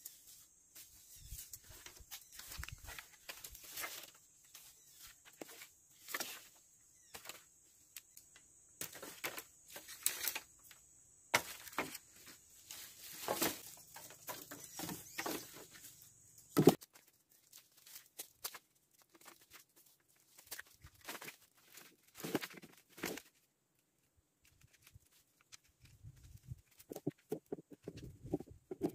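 Dry wooden sticks and branches knocking and clattering in irregular bursts as they are picked up and laid on a pile of firewood. There is one sharper knock a little past the middle.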